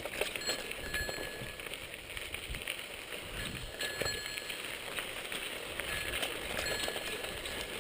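Bicycle ridden over an unpaved track: the tyres run on gravel and the bike rattles, with a few brief high-pitched squeaks.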